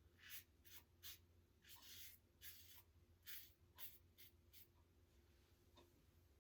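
Gillette Heritage safety razor with a Gillette Nacet blade scraping through lathered stubble in about a dozen short, faint strokes on an across-the-grain pass.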